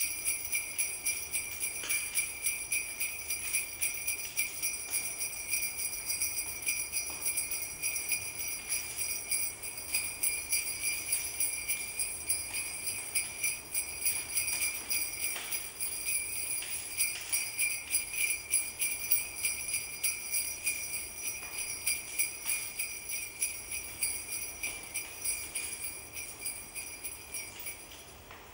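Jingle bells shaken in a steady rhythm, about two shakes a second, ringing high and bright, then fading out near the end.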